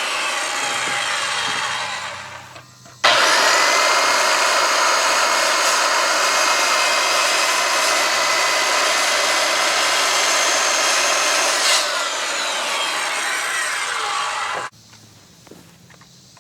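Electric power saw cutting notches into lumber. Its motor winds down in the first few seconds, then starts again about three seconds in with a rising whine. It cuts steadily for about eleven seconds and stops abruptly near the end.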